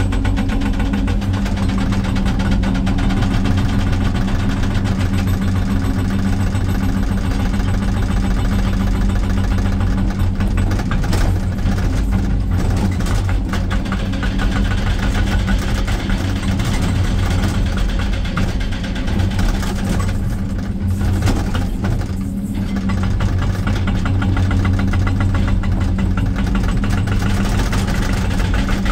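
Excavator-mounted hydraulic rock breaker hammering rock in rapid continuous blows over the excavator's steady diesel engine hum, heard from inside the cab, with brief pauses about two-thirds of the way through.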